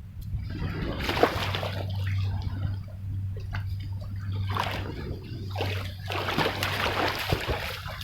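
Water splashing and sloshing in several irregular bursts, over a steady low hum.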